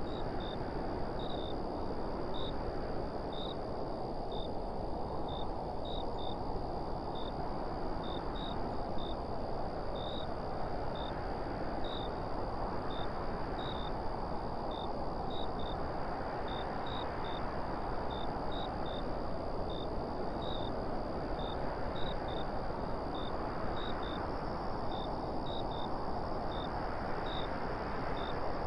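Wind blowing steadily, swelling and easing every few seconds, with a faint high chirp repeating about twice a second.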